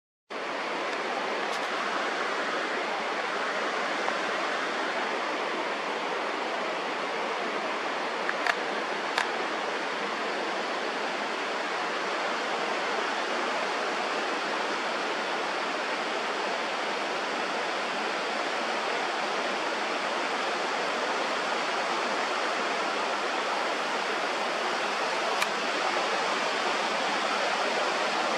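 Mountain river rushing steadily over rocks beneath a marble rock arch, a constant even roar of water. A few faint clicks come about a third of the way in and again near the end.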